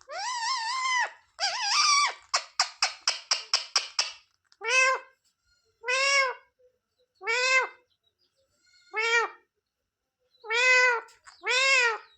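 Indian ringneck parrot vocalising: two longer wavering calls, then a quick rattling chatter of about six clicks a second, then a run of short calls that each rise and fall in pitch, about one every second and a half.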